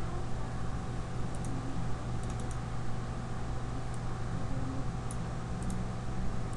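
Steady low hum of room and microphone noise, with faint scattered computer clicks at irregular intervals, a few of them close together.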